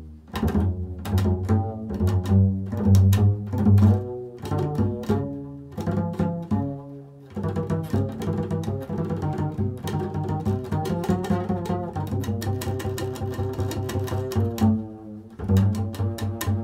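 Upright double bass played pizzicato: an improvised line of plucked notes. About halfway through the notes come faster and sit higher, and deep low notes return near the end.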